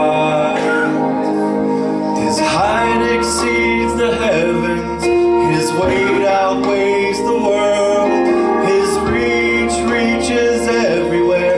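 Church choir singing a gospel song with instrumental accompaniment, male and female voices holding sustained notes with vibrato and a male soloist on a handheld microphone leading.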